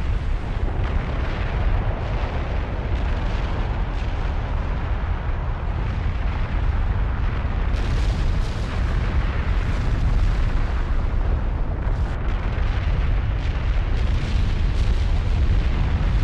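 Volcanic eruption: a continuous deep rumble with dense crackling and popping, with a few sharper bursts partway through.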